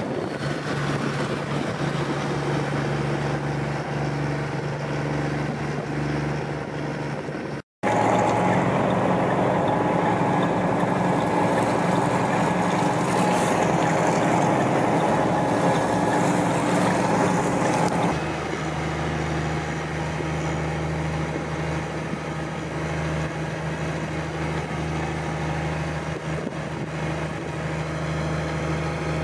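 Heavy diesel truck engines running steadily, with traffic noise on an icy highway. There are two hard cuts; the middle stretch is louder, with more rushing noise over the engine hum.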